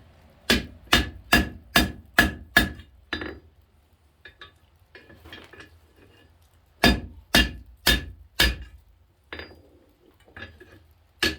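Hammer blows on hot steel over the horn of an anvil, ringing with each strike: a run of about seven blows at roughly two a second, a pause with a few light taps, then four more blows. The smith is bending the poker's handle eye around the horn to shape it.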